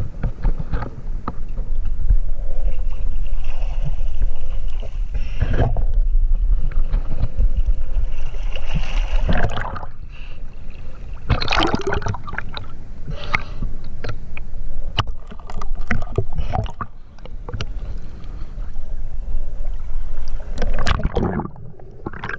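Water splashing and gurgling with a heavy low rumble, heard through a waterproof camera housing as a swimmer moves along the river surface and dives under, with many sharp knocks and splashes.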